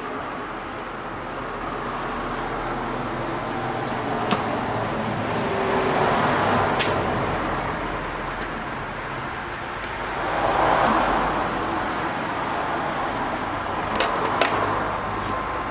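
Road traffic going by, with two swells as vehicles pass about six and eleven seconds in. A few sharp clicks and knocks come over it, near the start and twice near the end.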